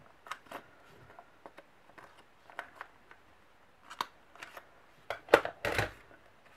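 Paper handling and a corner-rounder punch clicking through paper several times, the loudest strokes about five to six seconds in.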